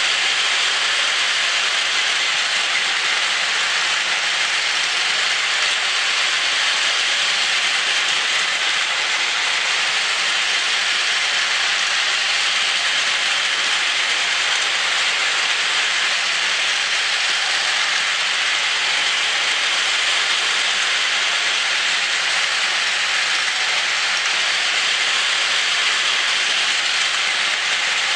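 Two Plarail battery-powered toy shinkansen trains, an E5 Hayabusa and an E6 Komachi in full sets, running together on plastic track: the small motors, gears and wheels give a steady, even whirring that holds the same level throughout.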